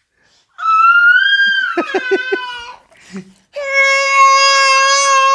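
Infant crying: a high-pitched wail that slides down a little in pitch, then after a short break a long, steady, lower cry held on one note.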